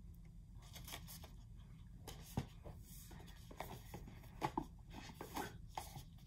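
Faint rustling of 7-inch single picture sleeves being handled and shuffled, with several short scrapes and light taps.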